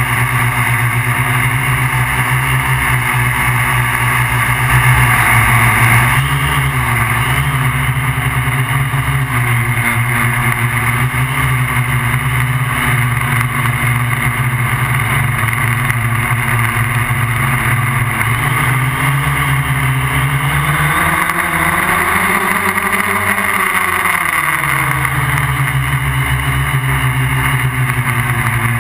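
Multirotor drone's brushless motors and propellers humming steadily, as heard from the GoPro mounted on the MikroKopter QuadroKopter XL. The pitch wavers as the motors adjust, and about two-thirds of the way through it rises for a few seconds and then settles back.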